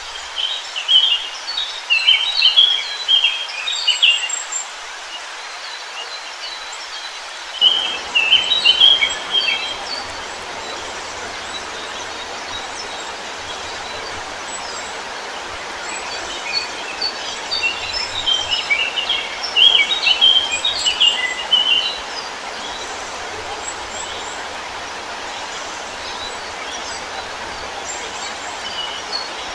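Songbirds chirping in quick clusters of short high notes, in three spells, over a steady rushing hiss. About a quarter of the way in, the rushing background suddenly grows deeper and fuller.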